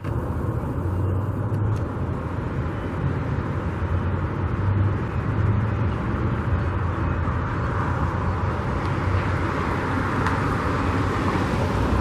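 Steady road traffic noise, a low rumble with a passing-tyre hiss that swells a little in the last few seconds.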